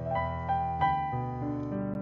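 Slow, gentle keyboard music with a piano sound: sustained notes and chords, a new one about every half second.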